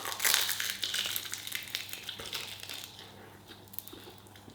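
Someone biting and chewing a mouthful of chicken close to the microphone: a crunchy, crackly chewing, loudest about the first second and fading after about three seconds.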